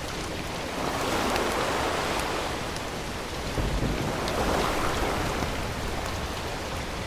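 Waves washing against shoreline rocks, swelling twice, with wind rumbling on the microphone.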